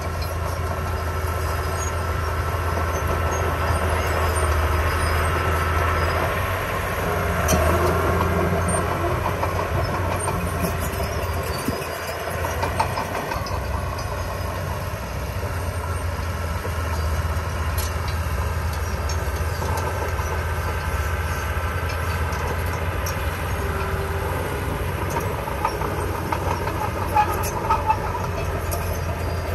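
Heavy construction machine's diesel engine running steadily, with occasional light metallic clanks over the drone.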